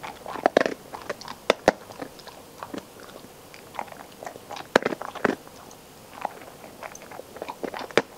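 A dog chewing, with irregular crunches and clicks and a few sharper snaps.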